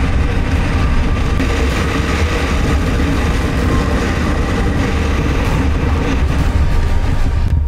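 Motorcycle on the move, heard from a camera mounted on the bike or rider: a steady, loud rush of engine and road noise.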